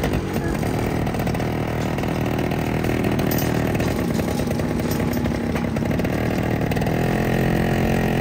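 A small engine running steadily, its pitch wavering slightly and rising a little near the end.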